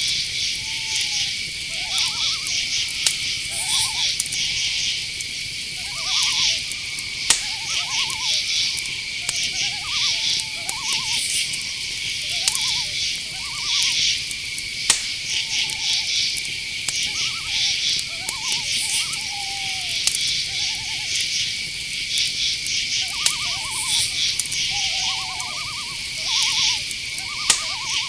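Night-forest chorus: crickets chirping without a break over a steady high insect drone, with short trilled calls repeating every second or two below them. There are a few sharp clicks, about 7, 15 and 27 seconds in.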